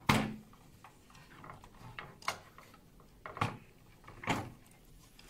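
Sharp plastic clicks and knocks from handling a plastic fibre optic splitter box and its splice tray. There are four louder clicks over about five seconds, the first the loudest, with lighter taps between.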